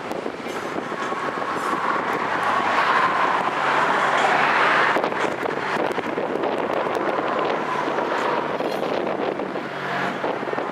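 Steady outdoor vehicle rumble of rail and road traffic, with wind buffeting the microphone.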